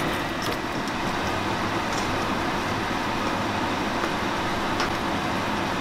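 Ground beef frying in two pans on a stovetop, a steady sizzle, with a few light clicks of a spatula against the pan as it is stirred.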